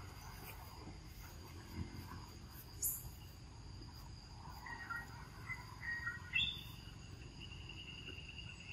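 Outdoor ambience of insects trilling steadily at a high pitch, with a second, lower insect tone joining about six seconds in. A few short chirping calls come between about five and six seconds, and a single sharp click sounds about three seconds in.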